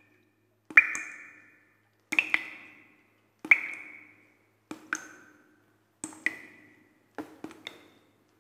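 Sparse bell-like pings, about one a second and some in quick pairs. Each rings briefly over a low note and dies away, like the sparse opening of a percussive music track.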